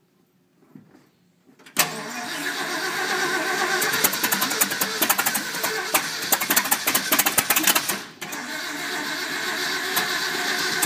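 Freshly overhauled Ford 360 FE V8 with an RV cam catching on its first start-up about two seconds in, then running with many sharp ticks. Its sound dips briefly about eight seconds in and picks straight back up.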